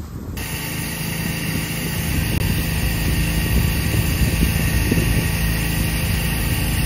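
An engine running steadily, with a constant low hum under an even hiss. It begins abruptly about half a second in.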